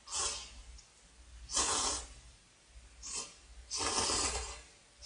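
A person slurping thick instant ramyeon noodles from chopsticks in four loud sucking slurps, the last one the longest.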